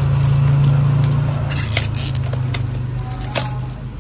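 Clear plastic shrink-wrap on a smartphone box crackling and crinkling as it is handled and peeled off, with a few sharp crinkles from about one and a half to three and a half seconds in. Under it runs a steady low hum that stops just before the end.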